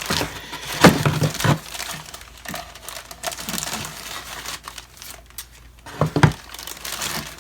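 Plastic packaging bag crinkling and rustling as it is handled and opened, in irregular bursts with a couple of sharper crackles about a second in and near the end.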